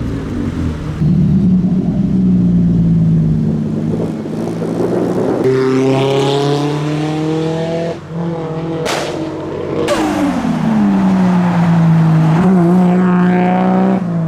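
A modified car's engine running, then revving up with rising pitch. Two sharp bangs about a second apart follow, after which the revs fall away and settle to a steady run.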